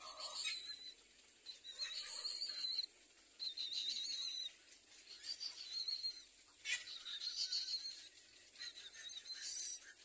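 Little egret nestlings begging: high, thin calls that come in bouts of about a second, six or so times.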